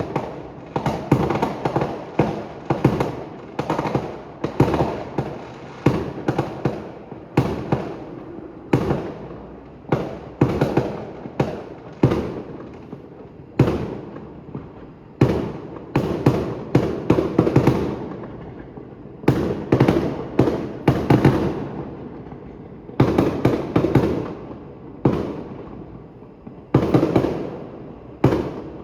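A fireworks display with aerial shells bursting in a near-continuous barrage. The bangs come in quick clusters of several a second, and each is followed by a rumbling echo.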